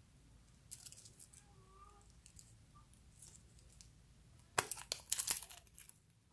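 Fingers working at a plastic toy ball: faint scratches and clicks, then a short, loud run of crackly, scraping noise about four and a half seconds in that lasts about a second.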